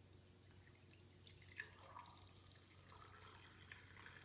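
Faint trickle of brewed coffee poured from a glass Chemex carafe into a ceramic mug, with a few small ticks.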